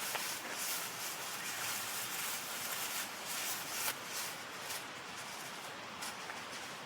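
Steady babble of a shallow stream, with a run of short rustles over it that thin out about four seconds in.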